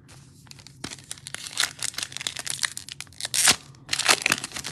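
Foil wrapper of a Panini Mosaic football card pack being crinkled and torn open by hand, a dense run of sharp crackles starting about a second in, with a short lull before more crinkling near the end.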